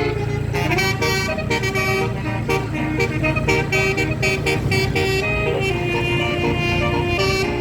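Basuri telolet bus horn playing a tune of short stepped notes, over the low, steady running of the bus's engine.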